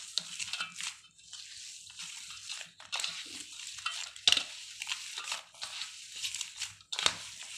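Mashed boiled potatoes mixed with spices being kneaded and squished by hand in a steel bowl: irregular soft squishing and rustling as the hand works the mixture against the metal, with a few louder strokes.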